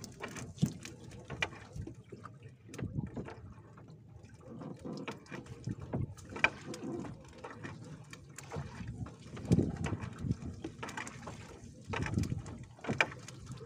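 Water splashing and sloshing against the side of a small fishing boat in surges every few seconds, with scattered knocks and clicks.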